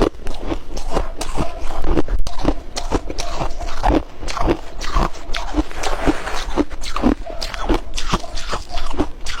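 Close-miked biting and chewing of white ice, hard and soft flaky pieces, in a steady run of sharp crunches about three a second.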